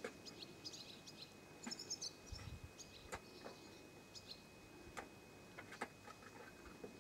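Faint scuffling and a few sharp clicks as kittens wrestle on a corrugated sheet, their paws and claws tapping and scratching it. Short, faint bird chirps come in about two seconds in.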